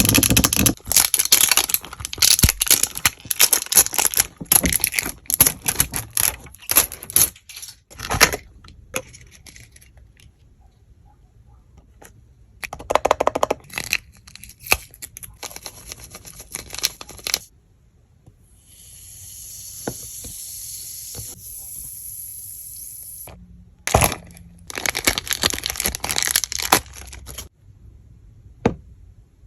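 Toy packaging being opened: plastic and cardboard tearing, crinkling and crackling in several bursts. Around two-thirds of the way through there is a steady high hiss for about four seconds.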